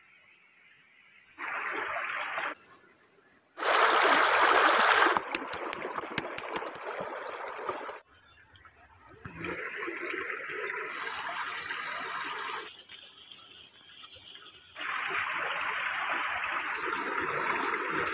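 A steady rush of running stream water, heard as a string of short edited clips with the level jumping at each cut, loudest about four seconds in. Light crackles of the wood fire under the roasting meat come through between about five and eight seconds in.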